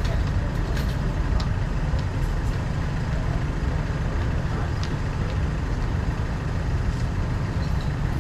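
Steady low rumble of a car driving on wet city streets, with a few faint scattered ticks.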